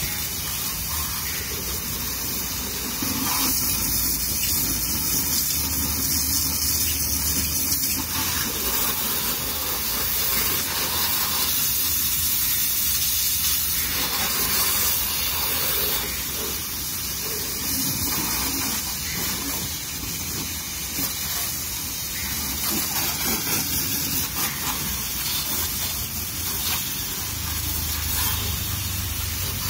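High-pressure water jet from a hose nozzle spraying steadily against a car's body and wheels, rinsing it, its sound swelling and easing a little as the jet is moved over the panels.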